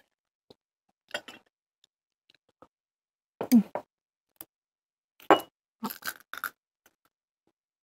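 Chopsticks clicking and clinking against ceramic bowls, a plate and a small sauce dish during a meal: a few short, scattered clinks with quiet between them, the strongest about three and a half and five seconds in.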